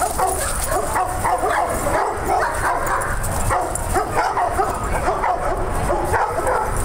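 Dogs barking and yipping: a steady run of short, high barks, several a second, overlapping as if from more than one dog.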